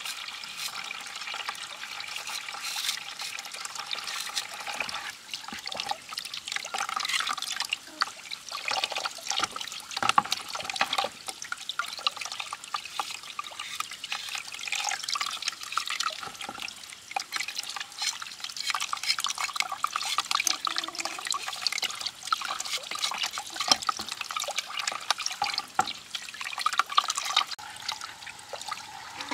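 Water running from a hose into a part-filled plastic basin, a steady trickling splash, with irregular scraping clicks of a knife paring the skin off a tuber.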